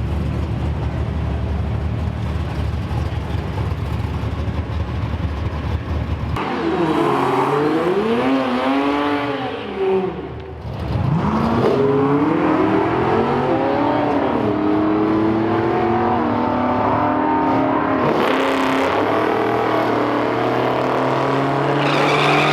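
Car engine: a low steady rumble, then about six seconds in it revs up and down several times, drops off briefly, and climbs in pitch in long rising pulls, rising again near the end.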